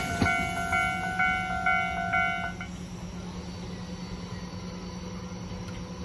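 Japanese level-crossing warning bell ringing its electronic clang about twice a second, then stopping about two and a half seconds in: the train has cleared and the crossing is reopening. After it, only a steady low engine hum remains, from a car idling at the crossing.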